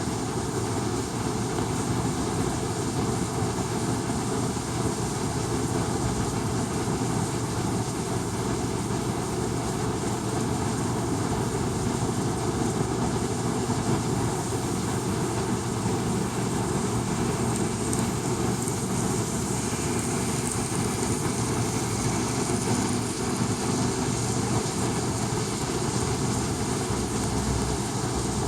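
N-scale model train running on the layout: a steady, unbroken drone.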